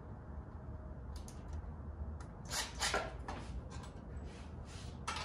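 Scattered short clicks and taps of a screw and a cordless impact drill being handled, with the loudest cluster of clicks about halfway through, over a low steady hum. No drill motor is heard running.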